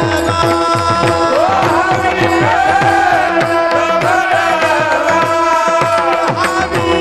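Indian devotional music: a hand drum plays quick strokes whose bass slides down in pitch, over a steady drone, with a melody line that glides up and down.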